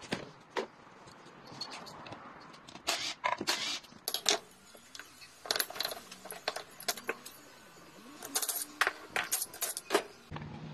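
Metal tools and steel gearbox parts clinking and knocking in irregular sharp clicks as a Wuling Hongguang S manual gearbox is taken apart.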